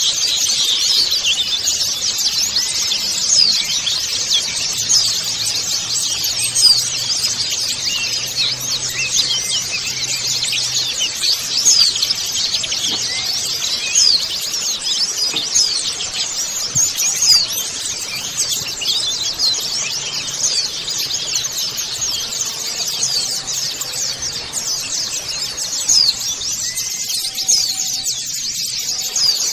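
A flock of white-eyes (pleci) twittering together: a dense, continuous chatter of many overlapping, high-pitched short chirps and trills.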